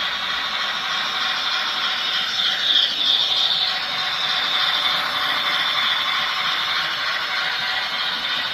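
H0 model trains running on the layout: the wheels rolling over the rails and the locomotives' motors and gears whirring, a steady mechanical rattle that swells briefly about three seconds in.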